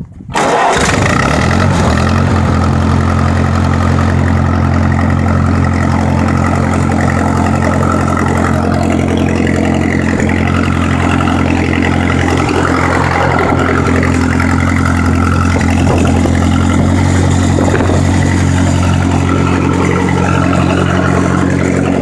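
1949 Massey-Harris 22 tractor's four-cylinder engine on a cold start, catching within the first second without starting fluid. It settles into a steady idle.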